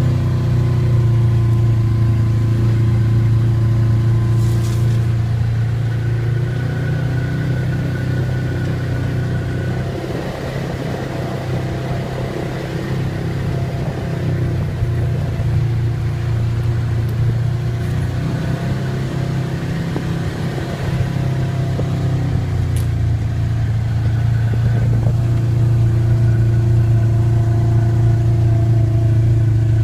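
ATV engine running steadily under way on a trail. The note roughens and drops a little in the middle, then evens out again.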